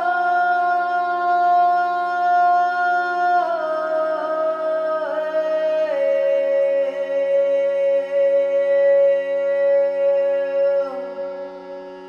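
Meditative music: a slow wordless vocal chant, each note held for seconds and stepping down in pitch, over a steady drone. It fades out near the end.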